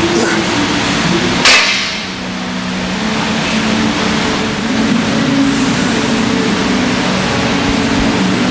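A single loud metallic clang about a second and a half in, a loaded barbell with iron plates being put down on the floor, over a steady background drone.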